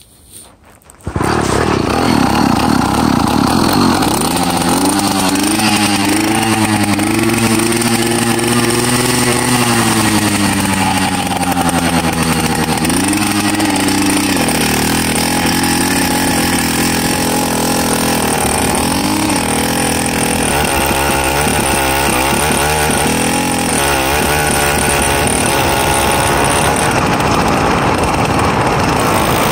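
PK80 two-stroke motorized-bicycle engine coming in abruptly about a second in, then running under way, its pitch rising and falling as the throttle is worked.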